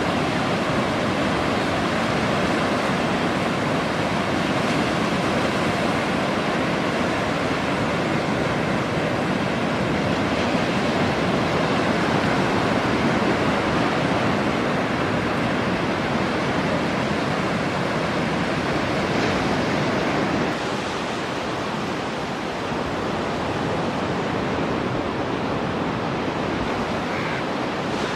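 Sea waves breaking on a beach, a steady wash of surf that drops a little in level about three quarters of the way through.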